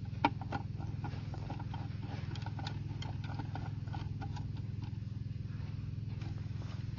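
Wooden table legs being screwed by hand into metal mounting plates on a board, giving small scattered clicks and creaks, the sharpest about a quarter second in. A steady low hum with a fast flutter runs underneath throughout.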